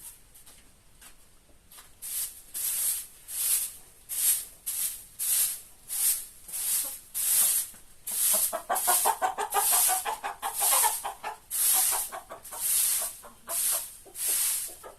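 Rhythmic swishing strokes of a broom sweeping the yard, about two a second, starting about two seconds in. Chickens cluck around the middle.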